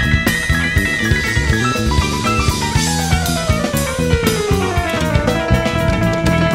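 Live rock band playing: drum kit, electric guitars and an electric keyboard, with a long line sliding down in pitch through the middle.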